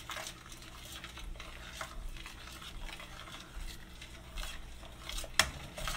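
Metal spoon stirring a thick, creamy sauce in a stainless steel pot, with soft scraping and light clinks of the spoon against the pot. There is one sharp knock a little after five seconds in.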